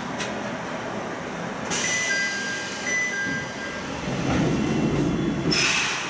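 Electric train of the Ichibata Electric Railway rolling slowly into the terminus and braking to a stop, heard from inside the cab end. There is a hiss of compressed air about two seconds in and again near the end, thin high squealing tones in between, and a heavier low rumble over the last two seconds.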